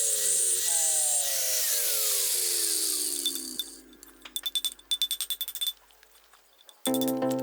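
A power tool running with a loud high hiss and a falling whine, dying away about three and a half seconds in, followed by a rapid run of sharp clicks. Music starts near the end.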